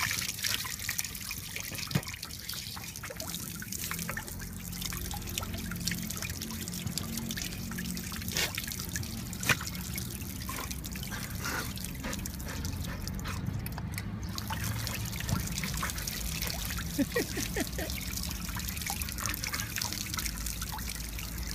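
Water spraying from a hand-held shower nozzle onto a dog's coat and splattering on wet pavement, a steady trickling splash with a couple of brief sharp taps.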